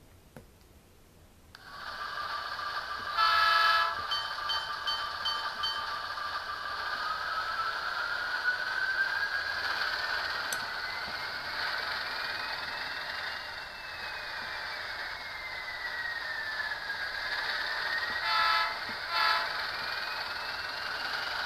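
The onboard sound of an HO scale ALCO S4 diesel switcher, a Bachmann Sound Value model, playing through its small speaker: the diesel starts up about a second and a half in, a horn blows loudly soon after and a bell rings briefly. The engine then runs steadily as the model moves, with a whine that slowly rises and falls in pitch, and the horn gives two short toots near the end.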